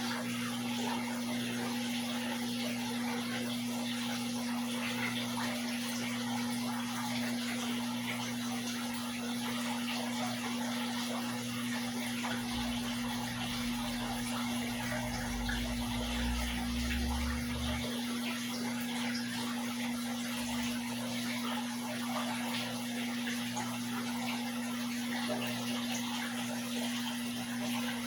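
Steady trickling and splashing of aquarium water over a constant low hum. A deeper rumble comes in briefly around the middle.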